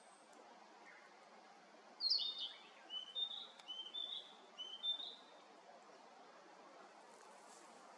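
A songbird singing one short phrase of repeated high chirping notes, starting about two seconds in and lasting about three seconds, over a faint steady outdoor hiss.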